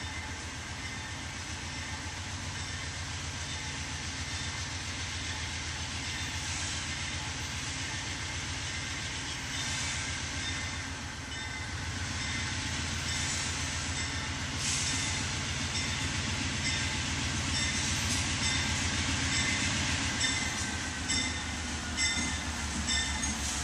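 GE C40-9W (Dash-9) diesel locomotive with a 16-cylinder engine, under load as it climbs a grade of over 2%. A steady low throbbing grows louder as the locomotive approaches.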